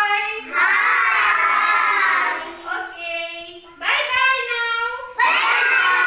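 Young children singing high-pitched notes in short phrases with brief breaks between them.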